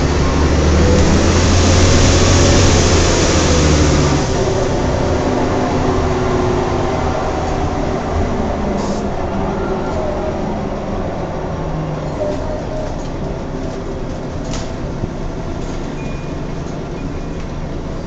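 Volvo Olympian double-decker bus in motion, heard from the upper deck: a steady rumble of engine and road noise with faint whining tones running through it, the strange differential noise the rider is recording. A heavier low rumble in the first four seconds eases off after that.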